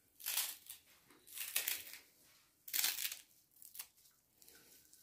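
Knife chopping a bunch of fresh parsley finely, with about four crunchy cutting strokes roughly a second apart.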